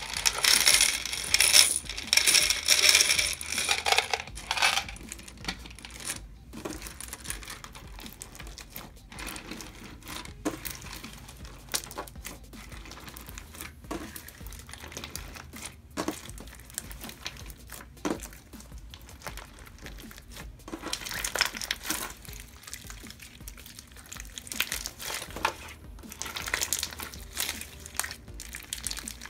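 Crunchy clear glue slime packed with bone-shaped fishbowl beads, tipped out of a plastic tub and then pressed and kneaded by hand, making crackling, popping and clicking sounds. The crackling is densest in the first few seconds, thins to sharp single clicks about every two seconds, and comes back denser near the end.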